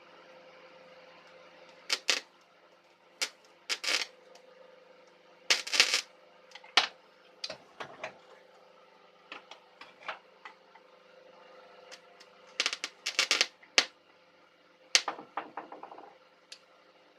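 Homemade spot welder built from a microwave oven transformer, giving a series of short, sharp crackling zaps at irregular intervals, some in quick clusters. A steady hum runs underneath.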